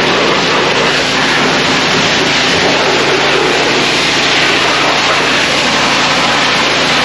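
An engine running steadily at a constant speed: a loud, even rushing noise over a steady low hum.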